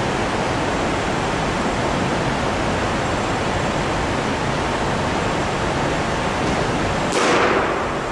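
Steady background hiss of room noise, with a brief louder rush of noise about seven seconds in.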